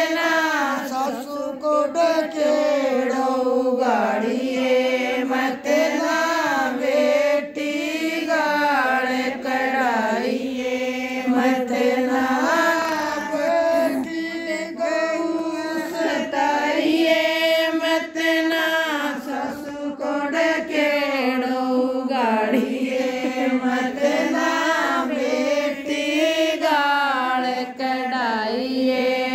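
A woman singing a Rajasthani jakhdi folk song, one voice without instruments, in long, sliding, held phrases with short breaths between them.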